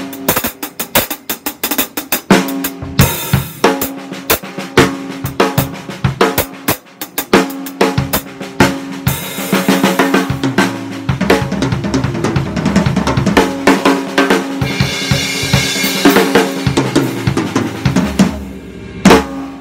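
Sakae Almighty Birch drum kit played in loose, fast warm-up patterns: rapid snare and tom strokes over bass drum, with cymbal crashes washing in. A last hard hit shortly before the end leaves the kit ringing.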